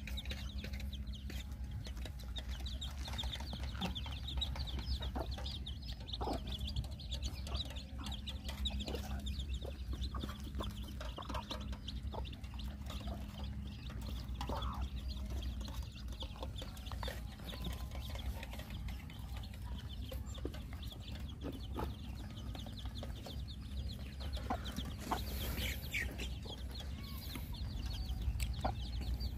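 Chickens clucking now and then, short scattered calls over a steady low rumble, with a faint high chirring in the background.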